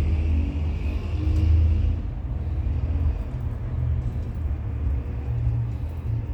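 A low, steady rumble, a little louder in the first two seconds.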